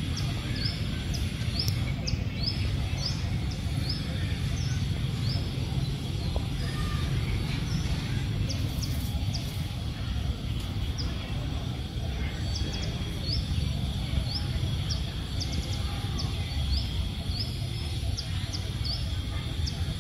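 A bird chirping in runs of short, high chirps, about two a second, with a pause of several seconds in the middle. Under them runs a steady low rumble.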